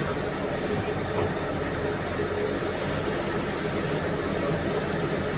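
Large diesel engines of heavy mining equipment, a hydraulic excavator and haul truck, running steadily: a continuous drone with a steady higher hum on top.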